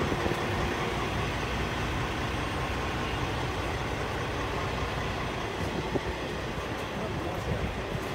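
Semi-truck running down the road: a steady rumble of engine and tyres with light rattles.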